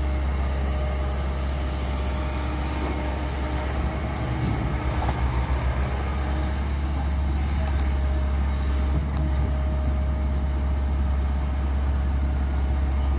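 Heavy diesel engines of a Caterpillar tracked excavator and a dump truck running steadily while the excavator digs and swings loads of earth into the truck, with a brief throbbing about four seconds in.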